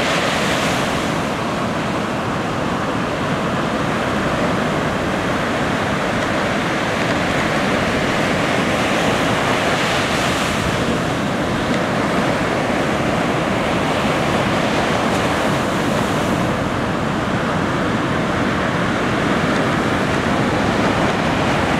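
Ocean surf breaking: a steady, loud wash of waves that swells a little about half a second, ten seconds and sixteen seconds in, with wind buffeting the microphone underneath.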